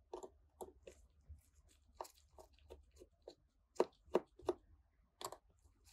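Precision 1.5 mm Phillips screwdriver turning tiny screws out of a smartphone's frame: a run of soft, irregular clicks and scrapes of the bit in the screw heads, the loudest few about four seconds in.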